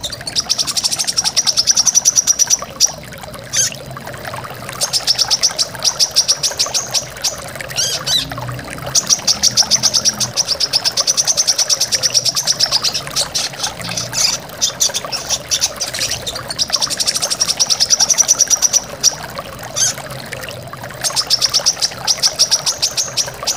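Brown-throated sunbird (kolibri kelapa) singing its rapid 'tembakan' song: a string of long, fast, high-pitched trills of a few seconds each, broken by short pauses and single sharp notes. Steady rushing waterfall water runs beneath.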